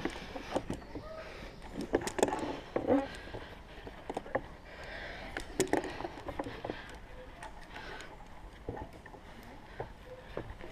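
Scattered clicks, knocks and rustling from climbing gear and the wooden tree platform as a climber moves around the tree on a high-ropes course.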